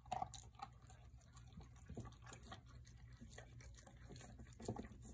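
Cane Corso eating from a stainless steel bowl: faint, irregular wet chewing and lapping, with a couple of louder knocks of muzzle or food against the bowl.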